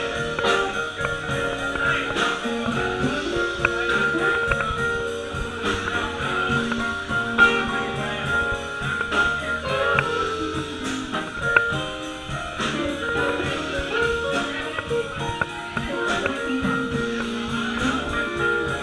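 Blues band music with guitar and a steady beat.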